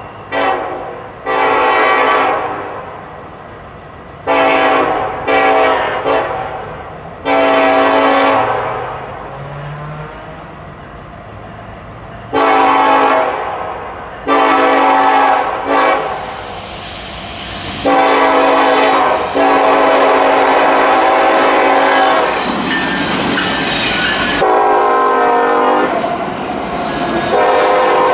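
Norfolk Southern freight locomotive's air horn blowing grade-crossing signals: several groups of long and short blasts as the train works through successive street crossings. The blasts get longer as it nears, with one held blast about two-thirds of the way through.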